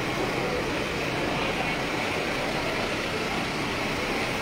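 Steady indistinct din of a crowded station hall, an even background noise with no single clear source.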